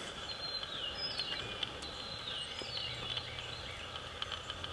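Songbirds calling in spring woods, several short downward-sliding whistles over a steady background hiss. A faint low hum runs through the middle for a couple of seconds.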